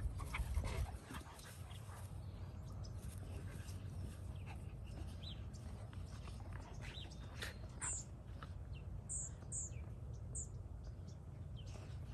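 A Great Pyrenees and a black cocker spaniel puppy play-wrestling on grass, with faint puppy sounds over a steady low rumble. A few short, high bird chirps come in the second half.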